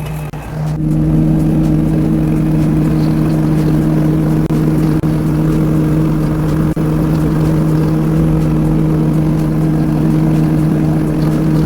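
Engine of a mini track skid steer running at a steady, unchanging speed, giving a constant low hum.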